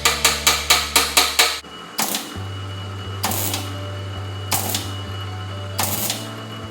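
Background music with a beat: a quick run of drum hits over a held bass note, then a steady bass note with single drum hits about every second and a half.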